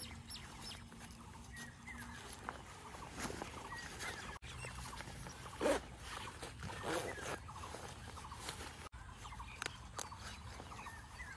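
Faint rustling and clicking of a textile motorcycle riding jacket being put on and fastened up the front and collar, with a few louder rustles midway.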